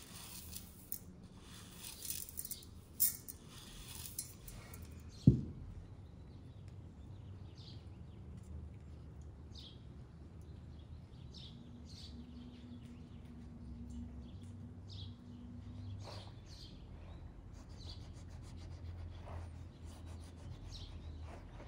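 Rice grains poured from a wooden bowl and pattering into a bowl of minced meat, then one sharp knock about five seconds in. After that a knife quietly cuts and peels a tomato, with small soft clicks and faint bird chirps.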